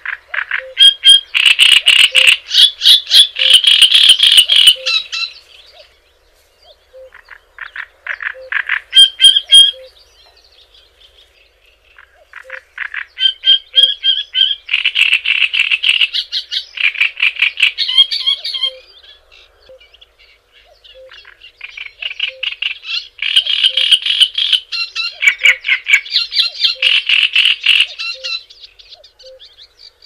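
A songbird singing loud phrases of rapid chattering notes, four phrases of a few seconds each separated by short pauses.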